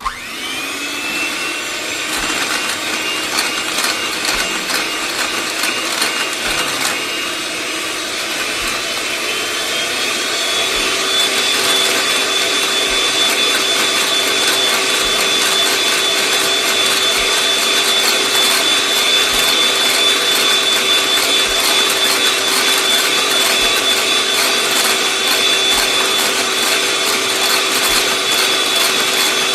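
Electric mixer whipping milk and chantilly powder into whipped cream. The motor starts suddenly and speeds up over the first second, then runs with a steady whine that steps up to a higher pitch about ten seconds in.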